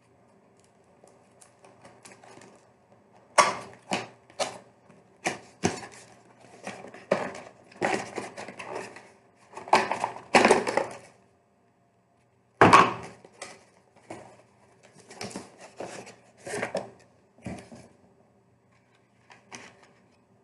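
A cardboard box being opened and a tabletop lighter unpacked by hand: irregular knocks, scrapes and rustles of packaging. The loudest knocks come about three and a half and twelve and a half seconds in.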